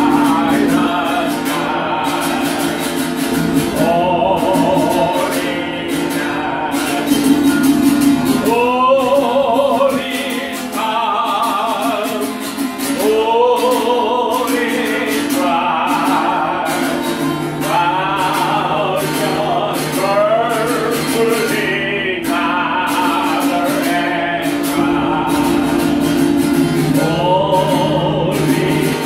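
A man singing in long, wavering phrases to acoustic guitar, with a group of voices singing along.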